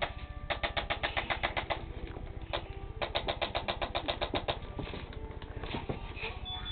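Impulse chiropractic adjusting instrument firing two rapid runs of clicks, about ten a second and each lasting over a second, with a single click between them, as it delivers adjusting thrusts to a tender spot on a small child's back.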